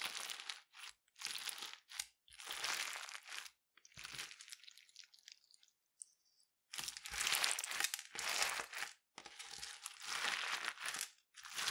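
Clear crunchy slime packed with tube-shaped plastic beads being squeezed and pressed by hand, crackling and crunching in separate bursts about once a second. The squeezing pauses for about a second and a half just past the middle, then starts again.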